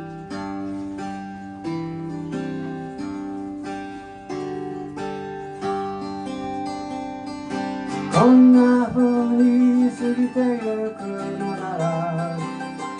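Song intro: acoustic guitar strumming steady chords, joined about eight seconds in by a louder melody line that slides and wavers in pitch.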